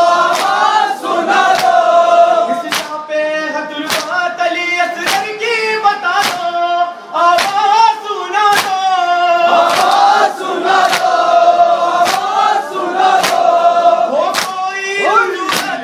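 Male voice chanting an Urdu noha (lament) over a steady beat of hands slapping on chests (matam), with other voices of the congregation joining in.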